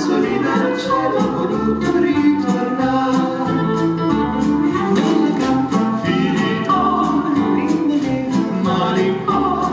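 A vocal trio singing in close harmony, backed by a small swing band with double bass and drums; cymbal strokes keep a steady beat under the voices.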